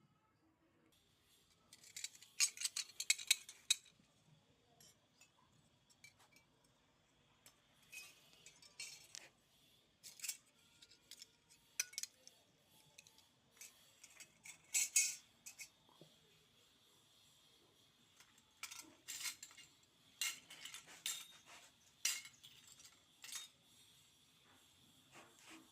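Small toy kitchen pieces being handled, with scattered light clicks, taps and clinks that come in clusters.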